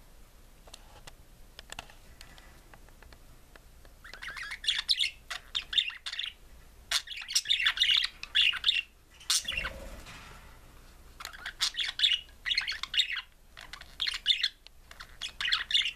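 Budgerigar warbling song: after a few quiet seconds of faint clicks, runs of fast chirps, clicks and chatter come in bursts of a second or two with short breaks between them.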